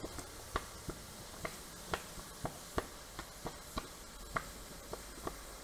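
Water in a steel quench drum popping and crackling around a hot cast iron anvil, with irregular sharp pops about two a second over a low hiss.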